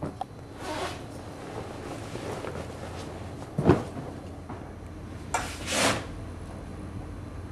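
Handling noise as the camera is carried and moved: clothing rustling close to the microphone, one sharp knock about three and a half seconds in, and a longer rustle near the end, over a low room hum.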